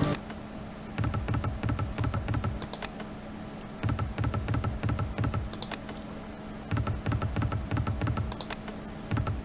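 Online slot game's reel-spin sound effect: three runs of rapid clicking ticks, each about a second and a half long, as the reels spin, each followed by a single sharp click.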